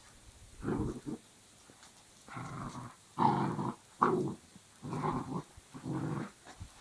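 Dog growling in a run of six short growls, each about half a second long, during a tug-of-war game over a rope toy; the loudest come about three and four seconds in.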